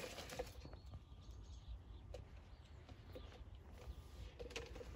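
Quiet outdoor ambience with a faint low rumble and a few soft scattered clicks, after one sharp click right at the start.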